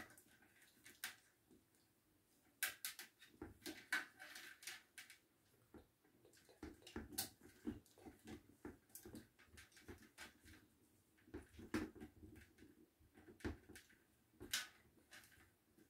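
Faint, irregular clicks and taps of plastic parts and cable being handled as a ring light is fitted onto its tripod stand.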